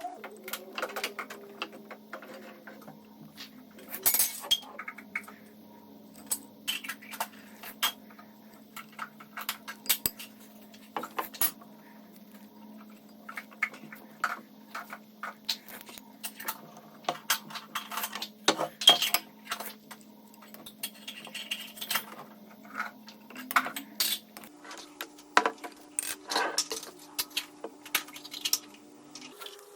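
Kitchen utensils clinking and tapping against dishes and containers: irregular sharp clinks and knocks, the loudest a little past halfway, over a faint steady hum.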